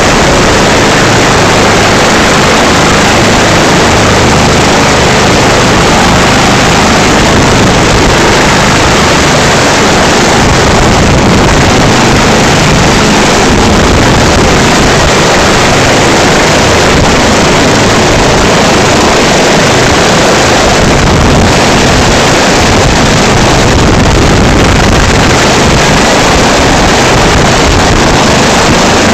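Loud, steady helicopter noise with rotor downwash buffeting the microphone.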